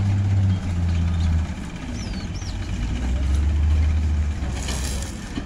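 Tractor engine running steadily as it pulls a trailer away, its low note stepping down a little about half a second in and again in the middle. Two short high chirps sound about two seconds in.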